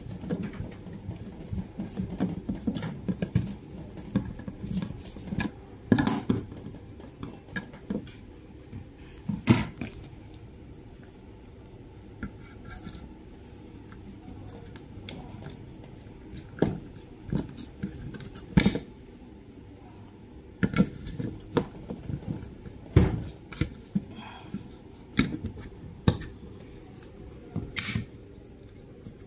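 Scattered clicks, taps and knocks of hard plastic being handled: a screwdriver turning screws into a plastic camera wall-mount bracket, a cable pushed through the bracket, and a bullet security camera fitted onto it. About a dozen sharper knocks stand out, spread irregularly among fainter clicks.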